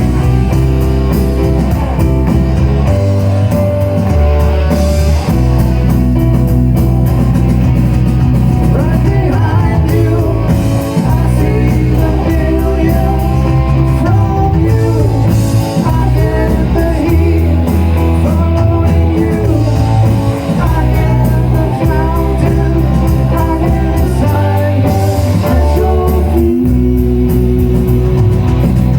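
Band playing rock music with electric guitar, bass and drum kit.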